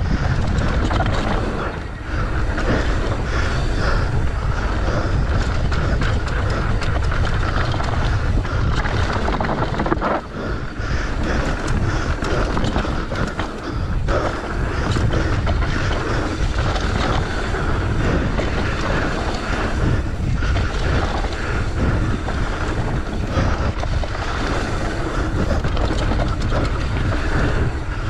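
Mountain bike descending a dirt trail at speed: tyres rumbling over packed dirt and wind buffeting the rider-mounted camera microphone, with occasional knocks as the bike hits bumps.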